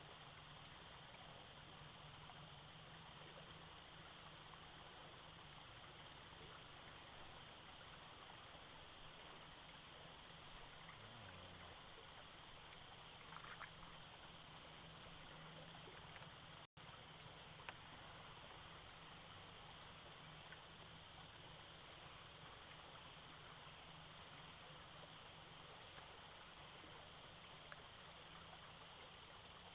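Steady high-pitched insect chorus over faint outdoor ambience, broken by a momentary dropout about halfway through.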